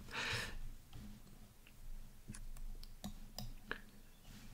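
Faint, scattered computer mouse clicks, about six of them, after a short soft hiss at the start.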